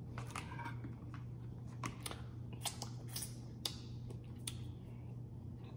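Scattered light clicks and crackles of food being handled by hand, about eight of them spread unevenly, over a steady low hum.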